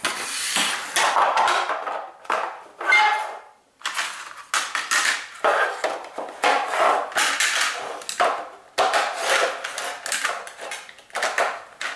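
Pieces of a vintage Marx clockwork toy car track set being handled and fitted together: irregular clattering and knocking of the track parts.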